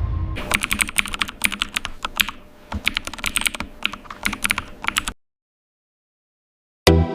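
Rapid, irregular clicking of computer-keyboard typing, stopping suddenly about five seconds in. After a short dead silence, electronic music with a steady beat starts near the end.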